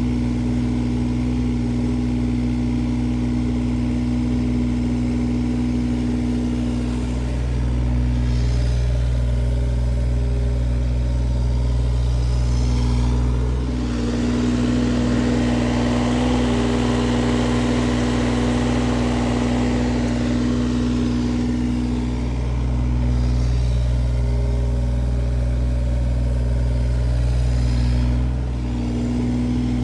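Excavator's diesel engine running steadily as it digs, its note swelling and easing a few times, loudest for several seconds in the middle.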